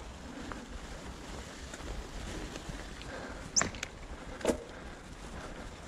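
Mountain bike rolling along a leaf-covered dirt trail, with a steady low rumble of tyres and riding noise. Two sharp knocks come about a second apart in the middle, the first with a brief high squeak, as the bike jolts over the ground.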